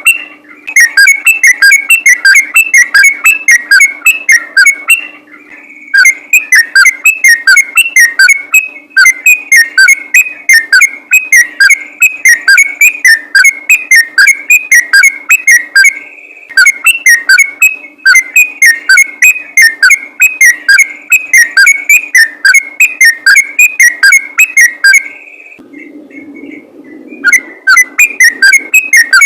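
Yellow-vented bulbul (trucukan) singing a fast, continuous run of short repeated chirping notes, about five a second, in long loud bursts with brief pauses between them.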